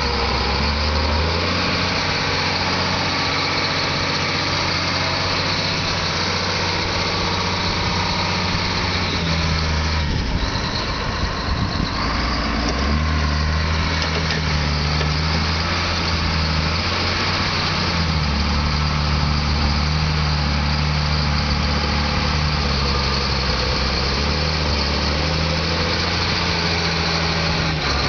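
Heavy machine's engine running steadily with a low drone. The drone drops and shifts in pitch about ten seconds in, then picks back up a few seconds later.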